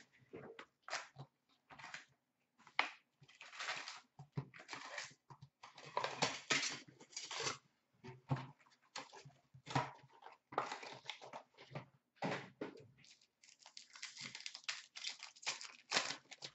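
Irregular rustling and crinkling of the cardboard box and foil-wrapped packs of 2016-17 Upper Deck Ice hockey cards as the box is opened and its packs handled. Near the end a pack wrapper is being torn open.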